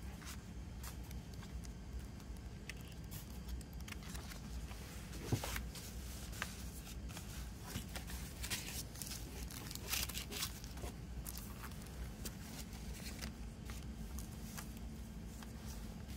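Paper and plastic being handled on a table: pages of a small booklet flipped, then CD booklets and discs in thin plastic sleeves slid and set down. Scattered rustles and soft clicks over a steady low hum.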